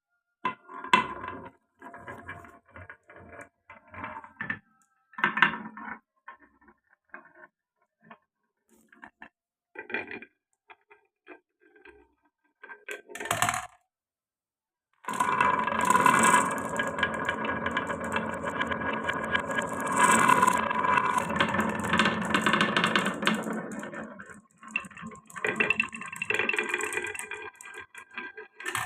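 Marbles running down a wooden marble run: scattered clicks and knocks at first as balls drop and strike the wooden pieces, then after a brief silent gap about halfway, a dense continuous rattle of balls rolling together along the track, with a faint ringing tone.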